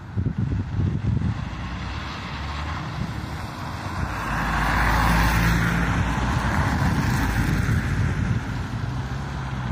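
Heavy diesel engine running with a steady low hum, the noise growing louder to a peak about halfway through and then easing off.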